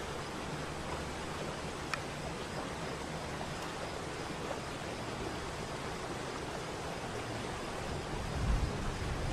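Steady rush of a waterfall's falling water, with a single sharp click about two seconds in and a low rumble swelling near the end.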